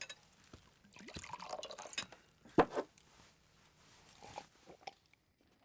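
A drink poured from a bottle into a glass, with a few sharp clinks.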